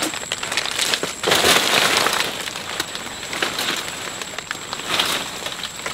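Leaves and stems of bankside swamp plants rustling and crackling as hands pull through them to free a snagged fishing line. A steady high insect whine runs underneath.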